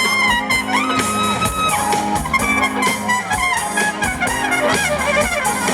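Live soul band playing with a horn section of trumpet, saxophone and trombone over a steady beat.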